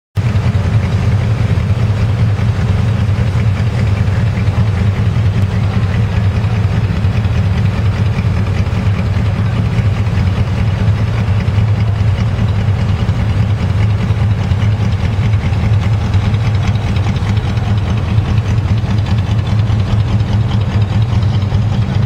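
Engines of a line of American cars idling as they creep forward at walking pace: a steady low rumble with no revving.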